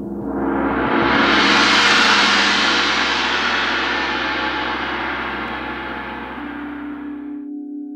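Gong swelling up into a loud wash over a low steady hum, loudest about two seconds in, then fading and cut off abruptly near the end. Just before the cut, a singing bowl's steady ring begins.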